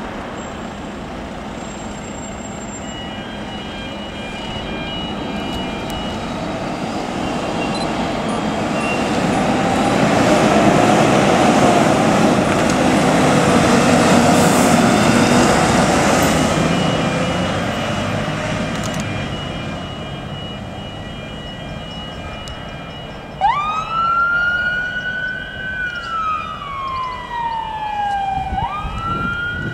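Volvo fire engine (rescue pump) pulling out of the station and driving past, its diesel engine and tyres growing loudest about halfway through and then fading. Near the end its wail siren switches on, sweeping up, sliding slowly down and rising again.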